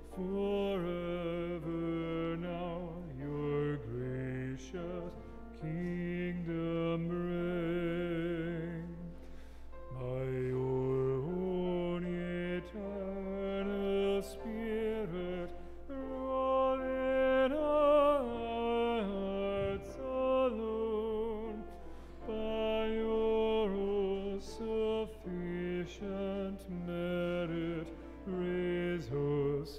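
Slow church music: sustained low accompaniment notes under a melody line with vibrato, moving in phrases of a few seconds.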